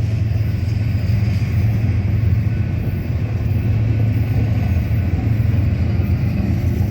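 BNSF manifest freight train rolling past with a steady low rumble.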